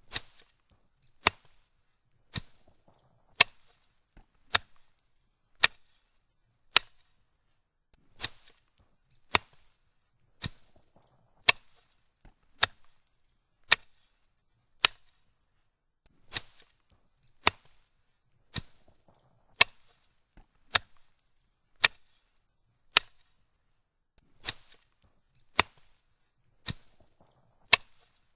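Foliage being cut with sharp, quick chopping strokes, about one a second in a steady rhythm. A few strokes are broader and swishier than the rest.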